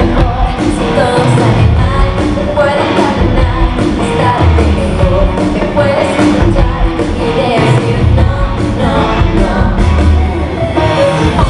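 Live pop-rock band music with singing, loud and dense with a steady beat, recorded from the audience at an arena concert.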